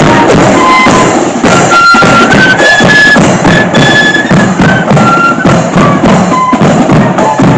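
Marching flute band playing a tune: loud flutes carry a high melody over a steady beat of snare and bass drums.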